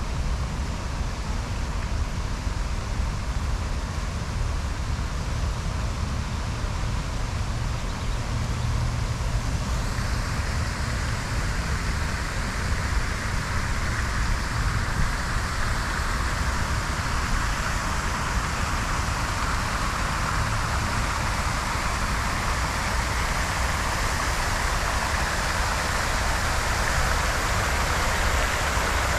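Park fountain's many jets falling into its basin: a steady hiss of splashing water that swells from about ten seconds in, over a low rumble.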